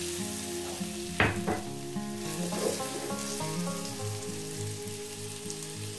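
Diced nendran banana sizzling in ghee in a non-stick frying pan while a steel spoon stirs it, with one sharp clink of the spoon against the pan about a second in.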